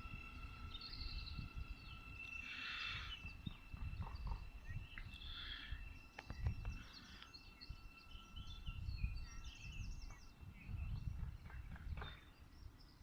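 Songbirds chirping in short scattered calls over a low rumble that comes and goes, with a faint steady high tone that stops about eight seconds in.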